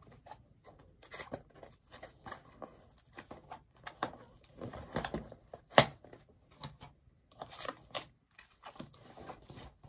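Cardboard bobblehead box being handled and opened by hand: scattered scraping, rustling and tearing of cardboard, with one sharp snap a little under six seconds in.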